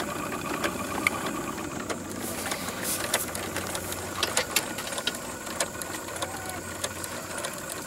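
Small steam engine of a model radio-controlled paddle-wheel boat running under steam, a fast steady mechanical clatter with scattered sharp clicks.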